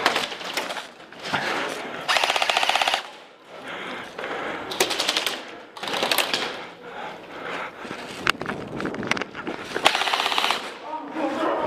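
Airsoft electric rifles firing in full-auto bursts, a rapid rattle of shots in several short strings. The longest lasts about a second.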